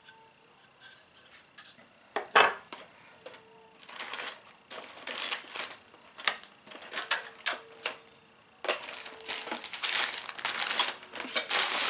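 Hard plastic 3D-printed model parts being handled and set down on a work surface: one sharp knock about two seconds in, then a run of clicking and clattering from about four seconds on.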